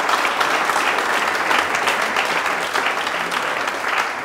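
Audience applauding: many people clapping together in a steady, dense patter that eases slightly near the end.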